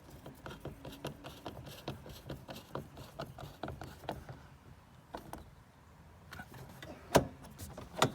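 Screwdriver driving the last screw into a car door trim panel by hand: a run of small clicks, then two sharp clicks near the end.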